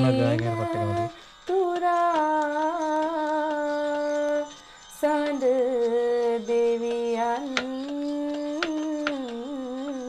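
Background music: a melody of long, ornamented held notes sung or hummed by a voice, with short breaks about a second in and near the middle.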